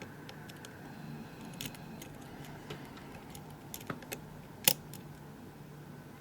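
Lock pick and tension wrench working the pins of a Euro cylinder lock: faint scattered metallic clicks and ticks, with a few stronger clicks around four seconds in and one sharp, loud click shortly after.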